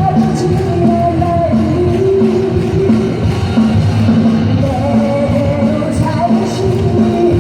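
Live pop-rock band music played loud over a stadium sound system: long held melody notes over a steady beat.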